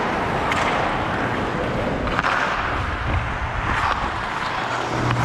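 Ice skate blades scraping across rink ice, with a steady rush of wind over a body-worn camera's microphone as its wearer skates. A few faint sharp clicks.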